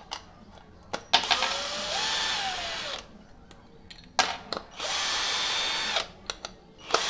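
Ingco cordless drill driving screws into a small wooden block, running in bursts of about two seconds each, three times, with small clicks and taps between the bursts as the next screw is set on the bit.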